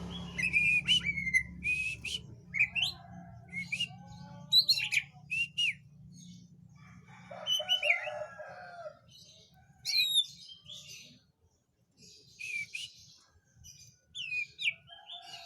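Songbird chirping and whistling in short, sharp phrases of quick up- and down-sweeping notes, with a few lower calls about eight seconds in. A low steady hum underneath stops about seven and a half seconds in.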